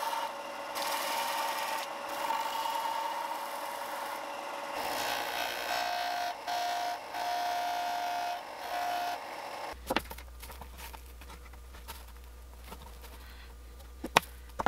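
Combination belt and disc sander running while a curved piece of laminated hickory is pressed against the abrasive, a steady motor hum under a grinding, rubbing hiss. It cuts off suddenly about ten seconds in, followed by a few light clicks of wooden parts being handled.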